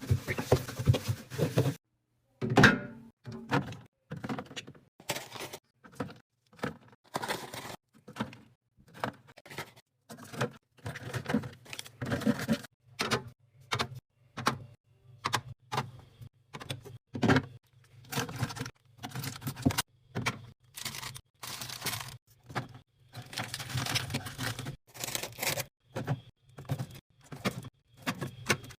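Items being handled and set into a mini fridge: a steady run of short clunks and taps, several a second, with some longer stretches of rustling around them.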